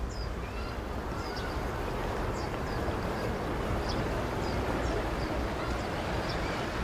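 Small birds chirping in short high notes, several a second, over a steady rushing of wind, with wind rumbling on the microphone.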